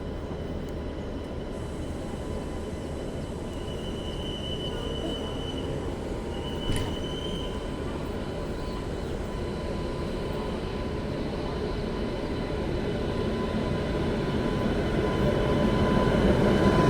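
An approaching train, a WAP-7 electric locomotive hauling LHB coaches, its rumble growing steadily louder, with no horn sounded. A short high tone comes twice and a single sharp click sounds about seven seconds in.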